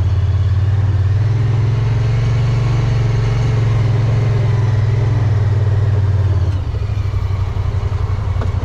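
2022 Honda Pioneer 1000-5 side-by-side's 999 cc parallel-twin engine running at low speed as the vehicle backs up, heard from the driver's seat. The steady low drone drops in level about two-thirds of the way through.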